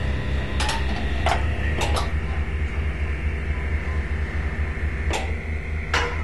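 Sound-installation soundtrack: a steady low pulsing drone under a thin high tone, broken by a handful of sharp taps with a short ring at irregular intervals, none in the middle of the stretch.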